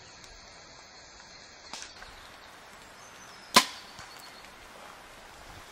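An archery bow shooting an arrow: one sharp, loud snap of the string's release about three and a half seconds in, dying away quickly.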